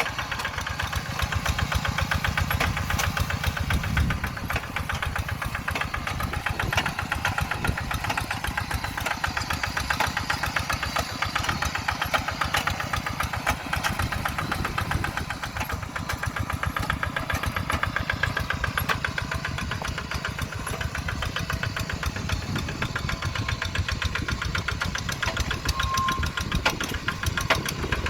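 Kubota RD85DI-2s single-cylinder diesel engine on a two-wheel hand tractor, running steadily with a rapid, even chugging beat.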